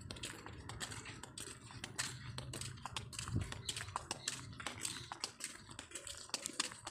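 Footsteps of several people walking in sandals on a concrete road: an irregular run of light slaps and taps, several a second, over a faint low hum.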